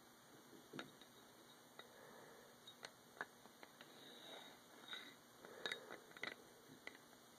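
Near silence, with a few faint, scattered clicks and light taps from handling a disassembled steel pistol slide with its recoil spring.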